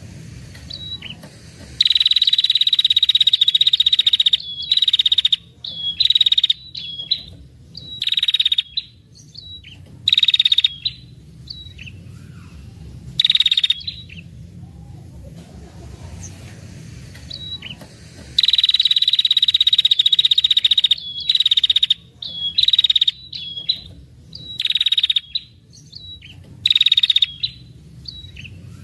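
Female red-headed prenjak (a tailorbird) giving its long, rattling 'ngetir' call: harsh, high, buzzy trills. Two long trills of about two seconds, one near the start and one past the middle, come among many shorter trills and clipped chip notes.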